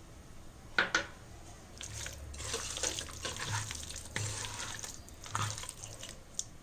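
Yogurt being added to a chicken marinade and stirred in a bowl: two sharp knocks about a second in, then several seconds of wet, sloshing stirring in uneven bursts, with a last click near the end.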